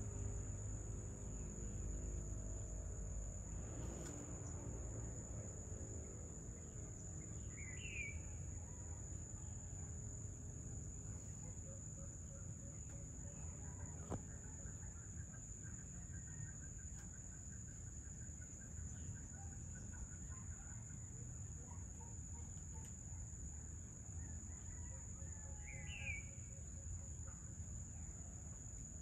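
Evening insects trilling in one steady high-pitched note, with a bird giving a short rising call twice, about eight seconds in and again near the end. Underneath is a low background rumble, and a low hum of several steady tones fades out over the first few seconds.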